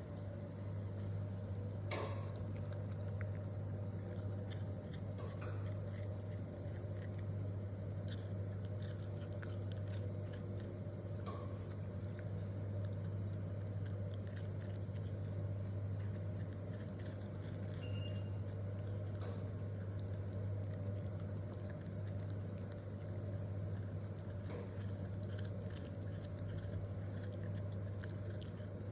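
Samoyed puppy crunching and chewing a raw carrot, with irregular short crunches throughout, over a steady low hum.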